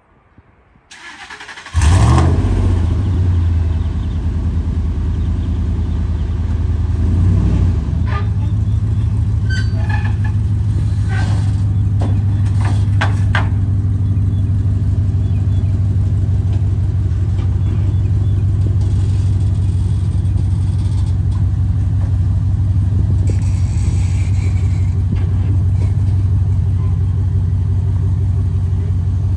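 Ford F-150 FX4 pickup's V8 starting about two seconds in, then idling steadily as the truck is backed slowly down the trailer ramps. A few knocks sound partway through.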